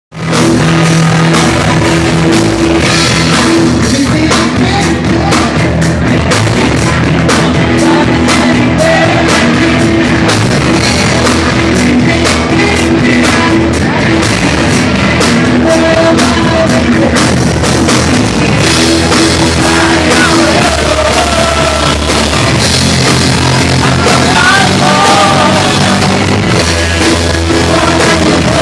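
A rock band playing live, loud and continuous, with a drum kit.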